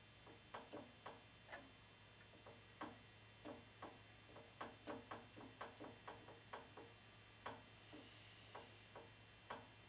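Faint light clicks, about two dozen at uneven intervals, over a steady low hum.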